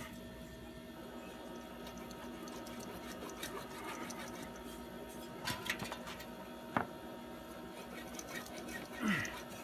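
Faint scraping and a few sharp metal clicks as a new muffler is worked by hand onto a mower's exhaust pipe.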